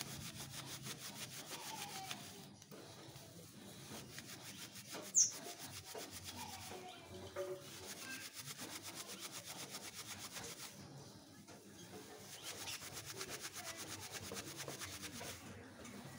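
Hands rubbing and rolling a wad of dry coconut husk fibre between the palms, a continuous scratchy rustle as the coir is worked soft into tinder. A single brief high chirp about five seconds in.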